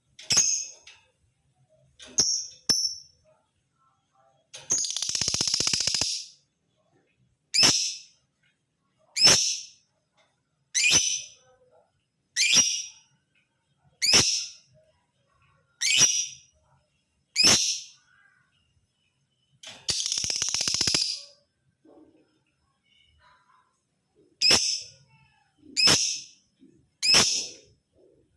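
Male lovebird calling: a series of short, shrill chirps about every one and a half seconds, broken twice by a longer rapid chattering trill lasting about a second and a half.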